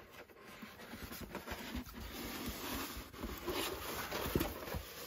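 Paper rustling and rubbing as hands unroll a large rolled art print and its cover sheet and smooth them flat, with a few soft bumps.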